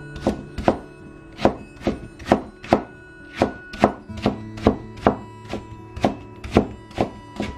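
Chinese cleaver cutting sliced radish into thin strips on a wooden cutting board: a steady run of crisp knife strikes through the radish onto the wood, about two to three a second. Soft background music plays underneath.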